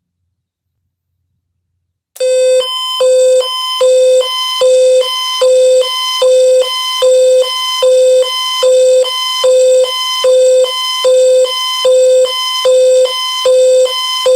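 Emergency Alert System attention signal announcing an Amber Alert: loud electronic beeping that starts after about two seconds of silence, two tones alternating in a steady pulsing rhythm.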